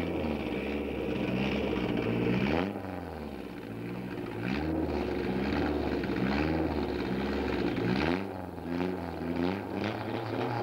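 Lancia Delta Integrale rally car's engine revving in repeated blips while it waits at the stage start. The revs rise and fall about once a second, coming quicker near the end.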